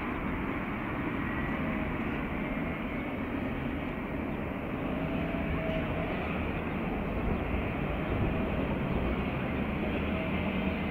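Distant Alstom Citadis tram rolling across a long road-and-rail viaduct: a steady, even rumble with no distinct knocks or horn.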